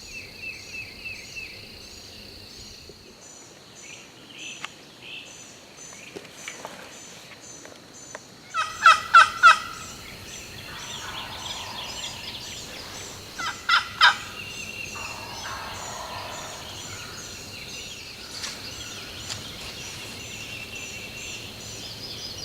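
Wild turkey gobblers gobbling: a loud, rapid rattling gobble about nine seconds in and a second, shorter one about fourteen seconds in.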